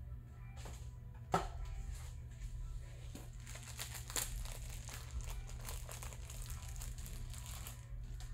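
Irregular crinkling and crackling, as of something being handled, with one sharp knock about a second and a half in, over a steady low hum.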